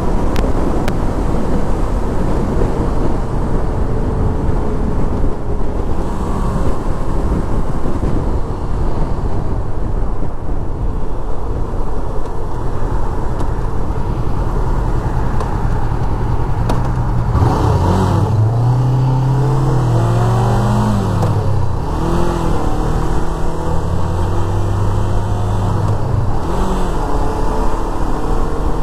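Sport motorcycle riding at road speed: a steady rush of wind over the microphone with the engine underneath. From about halfway the engine note comes forward, its revs rising and falling several times.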